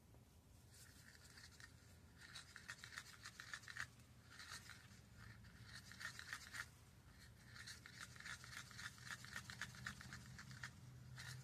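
Wooden craft stick scraping around the inside of a mixing cup, stirring pink colorant into resin: a faint, quick, rhythmic scraping in three runs with short pauses.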